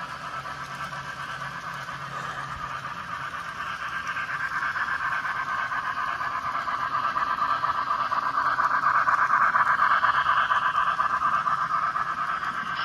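N-scale model trains running on the layout's track, a steady fast-textured running noise that grows louder through the middle and is loudest as a passenger train rolls close by near the end.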